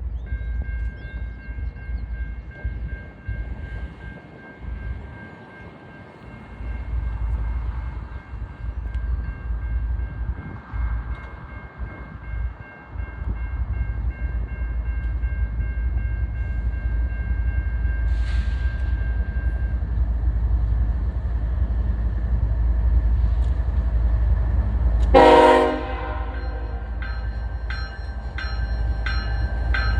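BNSF freight locomotive air horns: a steady chord held for about twenty seconds over the low rumble of an approaching train. About 25 seconds in comes a much louder, short horn blast. After it, the rhythmic clatter of a train rolling close by continues to the end.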